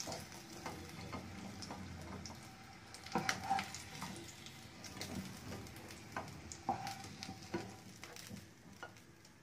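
Potato pieces frying in hot oil in a nonstick kadhai: a soft steady sizzle. A handful of clicks and knocks come through it as a wooden spatula lifts the fried pieces out and against the pan and bowl.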